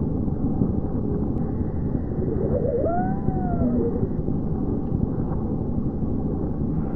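Dense, steady low rumbling noise from an abstract film soundtrack. Near the middle, a single wailing tone rises and falls in pitch over about a second and a half.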